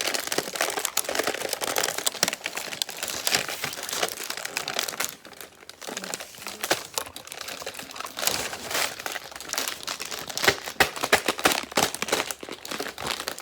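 Plastic packaging being crinkled and pulled open: a dense run of crackles and rustles that eases off briefly about five seconds in.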